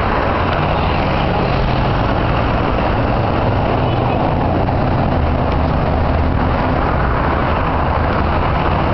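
Steady jet engine noise from an airliner that has just touched down and is rolling out on the runway.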